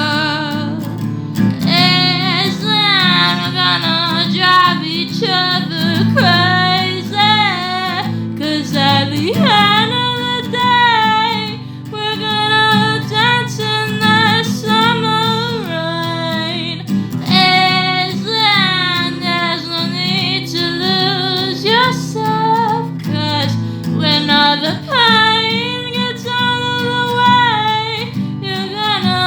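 A woman singing a slow song with vibrato, accompanied by guitar.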